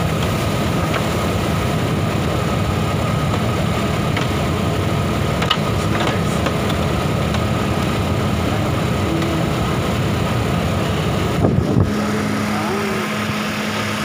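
Engine idling steadily, with a few light clicks of hand tools. About twelve seconds in the low rumble drops away and a lighter, steady hum remains.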